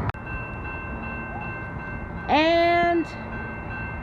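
Train horn sounding one short blast of under a second about halfway through, its pitch sliding up as it starts. Under it runs a steady high-pitched ringing tone.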